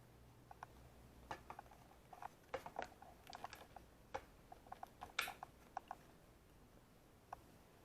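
Faint, irregular small clicks and taps, a couple of dozen scattered over several seconds, like handling noise and button presses on a camera. A faint low hum fades out about a second and a half in.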